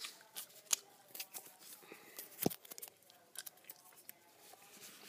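Strips of sticky tape handled and pressed down on a cutting mat: scattered small clicks and crackles, with one louder knock about two and a half seconds in.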